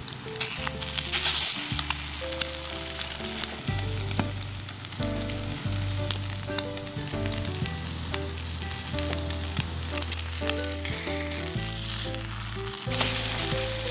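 Slice of egg-and-milk-soaked toast frying in sprayed olive oil in a pan: a steady sizzle with scattered crackling pops, swelling louder near the end. Soft background music plays under it.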